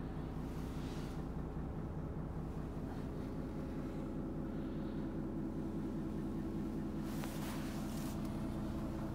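Renault T460 tractor unit's six-cylinder diesel engine idling steadily in neutral, heard from inside the cab.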